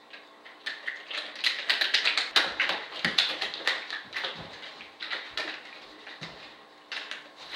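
Rapid, irregular clicking and tapping, with a few dull thuds mixed in.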